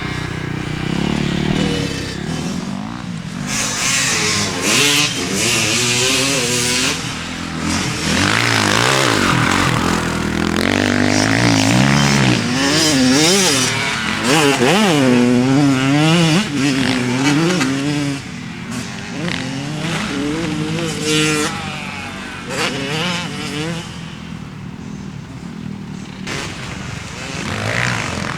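Kawasaki KX100 two-stroke single-cylinder dirt bike engine being ridden, its pitch repeatedly rising as it revs up and falling back as the throttle rolls off. It runs somewhat quieter for a few seconds near the end.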